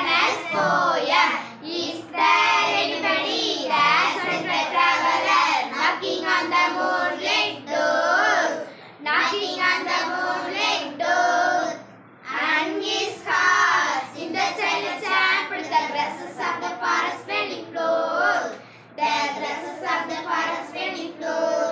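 A group of girls' voices reciting an English poem together in a sing-song chant, line by line with brief pauses between lines.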